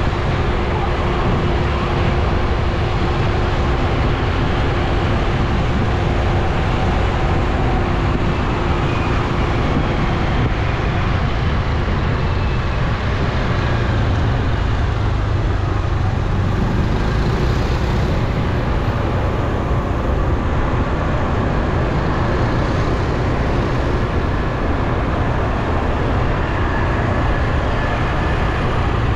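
Steady road-traffic noise of motor scooters and cars, heard from among the moving traffic, with a heavy low rumble of engines and road noise.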